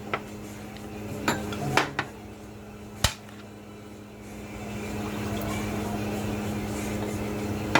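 Eating utensils clinking against a plate: a handful of sharp clinks in the first three seconds, over a steady low hum.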